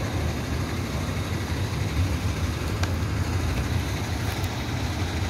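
Steady road traffic from passing cars and trucks on a busy multi-lane road, an even low rumble.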